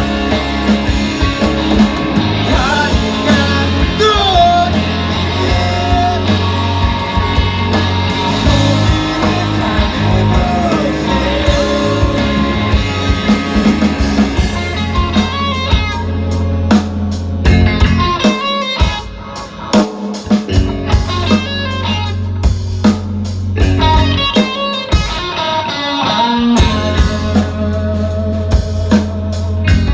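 Rock band playing: electric guitar, bass and drum kit, with a melodic lead over the first dozen seconds. About 18 seconds in the bass drops out for a few seconds, leaving guitar and drum hits, and then the full band comes back in.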